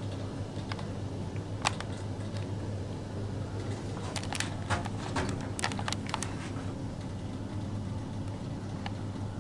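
Old OTIS lift car travelling, with a steady low hum from the moving lift. Light clicks and rattles come now and then, most of them bunched together about halfway through.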